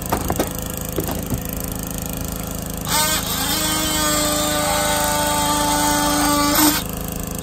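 Cordless oscillating multi-tool cutting out the coated roof membrane in a scupper. A few short knocks while the tool is stopped, then about three seconds in it starts up with a steady high whine and cuts until shortly before the end.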